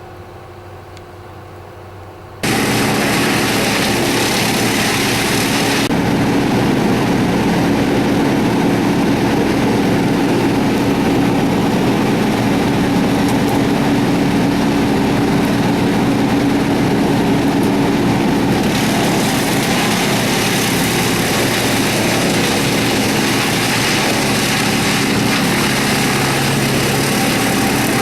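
Loud, steady running of an engine-driven wood chipper, cutting in suddenly about two and a half seconds in. A low hum sits under a hiss that eases for a while in the middle and then returns.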